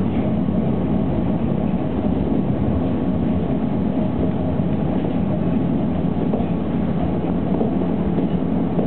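Tokyo Monorail car running along its elevated track, heard from inside the car: a steady rumble from its rubber-tyred running gear and motors.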